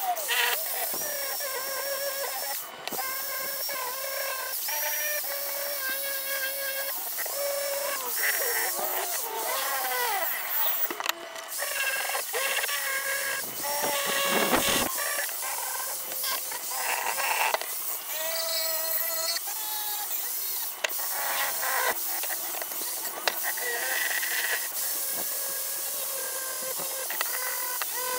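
Corded electric drill spinning a polishing pad against the inside of an aluminium pan: a steady motor whine that shifts up and down in pitch now and then as the pad is pressed and moved.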